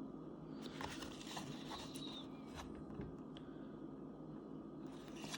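Quiet room with a steady low hum and a few faint ticks and soft rustles of handling.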